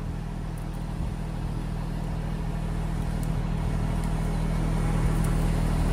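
Tractor engine running steadily as its hydraulics lower the hedge cutter's arm and cutting head, a low hum that grows gradually louder.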